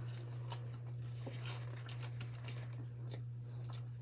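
Faint chewing with small crunching clicks of someone eating fast food, over a steady low hum.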